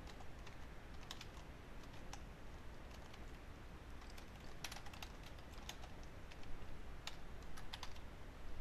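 Computer keyboard being typed on: faint, irregular keystrokes, a few at a time with short pauses between.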